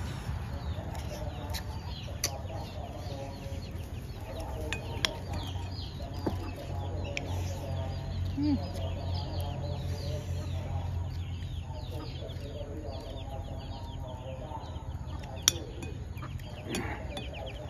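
Chickens clucking on and off throughout, with a few sharp clinks of a metal spoon on a ceramic plate, the loudest near the end.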